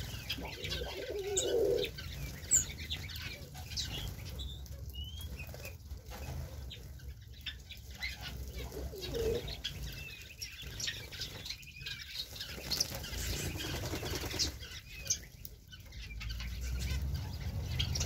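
Aviary birds feeding together: pigeons cooing low in short bouts, small finches and canaries chirping, and wings flapping as birds fly in and out.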